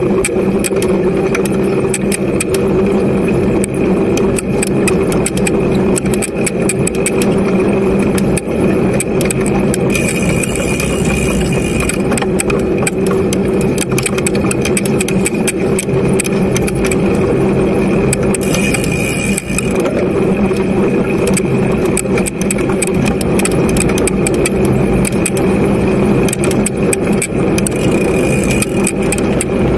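Mountain bike riding over a rough dirt trail, heard from an action camera mounted on it: a continuous rumble with many small rattles and clicks, and wind noise on the microphone, with short spells of louder hiss.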